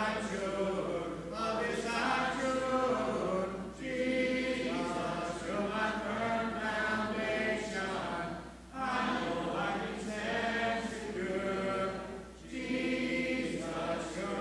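Congregation singing a hymn a cappella, many voices without instruments, in long held phrases with short breaks between them every few seconds.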